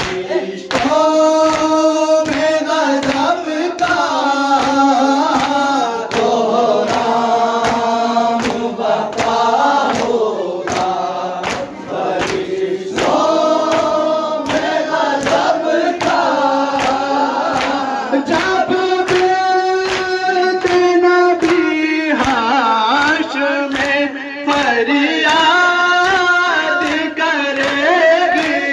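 A group of men singing a noha, a Shia mourning lament, in unison. Under the voices runs a steady beat of open hands striking chests (matam), about twice a second.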